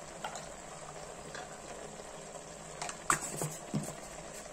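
Chicken pieces simmering in their own juices in a pressure-cooker pot: a steady bubbling hiss, with a few sharp clicks and taps, the loudest about three seconds in.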